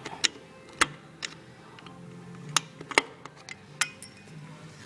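Sharp metal clicks and taps, about six spread over a few seconds, as a tool works the C-clip off the lawn tractor's wheel axle.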